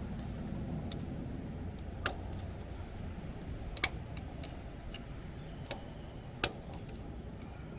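Scattered sharp metallic clicks of a screwdriver working at the snap-ring keeper in a power steering gearbox's input shaft bore, about half a dozen, the loudest about four seconds in and again about six and a half seconds in, over a steady low rumble.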